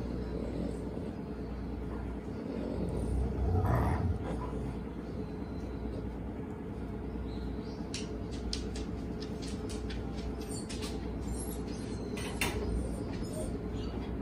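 A steady low hum fills the room, with a brief louder shuffle about four seconds in. In the second half come a run of light clicks, typical of a large dog's claws on a wooden floor.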